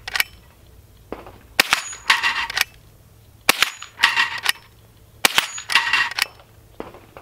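Henry H001 .22 LR lever-action rifle firing three sharp shots about two seconds apart, each followed by the metallic clatter of the lever being worked to chamber the next round.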